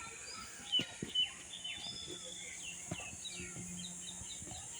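Several birds chirping and calling in quick, overlapping short notes, many sweeping downward, over a steady high hiss. Two short sharp knocks about a second in stand out as the loudest sounds.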